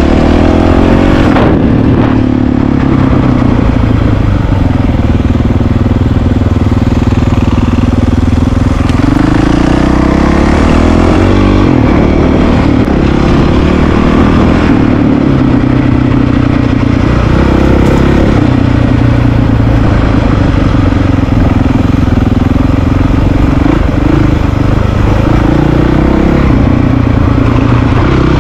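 Honda CRF450RL's single-cylinder four-stroke engine running loud, heard from the rider's seat, its note rising and falling as the throttle opens and closes.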